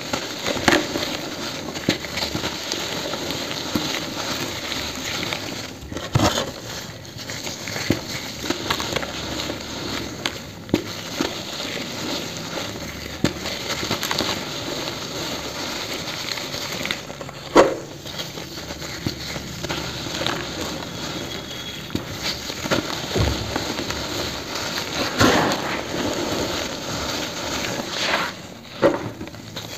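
Dried pure cement being crushed and crumbled in gloved hands: a continuous gritty crunching and trickle of powder, broken every few seconds by a sharp crack as a chunk snaps apart, the loudest a little past halfway.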